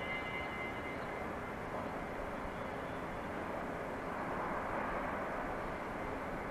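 Steady outdoor background hum of a distant shipyard and town, with a faint high whine that fades out about a second in.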